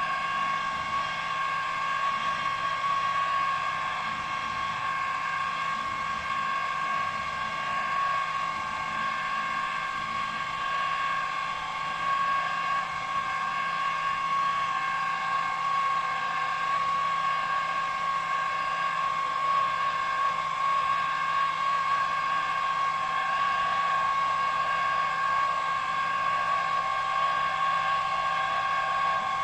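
Benchtop milling machine running with a steady whine while a small end mill drills an angled steam hole through a model steam whistle casting.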